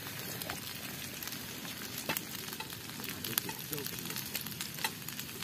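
Food sizzling steadily in a hot frying pan as cooked rice is tipped in over frying cubes, with a few light taps and scrapes of a wooden spatula.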